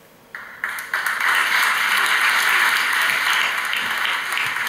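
Studio audience applauding. The clapping starts about a third of a second in, swells within the first second, then holds steady.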